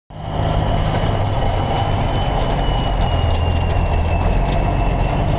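Heavy diesel truck engine idling steadily, with a faint high whine above it and a few light ticks.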